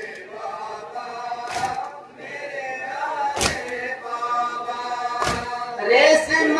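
Men's voices chanting a noha, a Shia mourning lament, in unison, with three heavy chest-beating (matam) thuds about two seconds apart. The chanting gets louder near the end.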